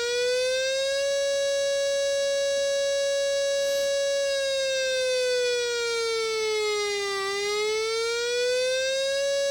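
South Korean civil defense siren sounding the air raid warning signal: a single loud tone that holds steady, then slowly falls and rises again in a wavering pattern.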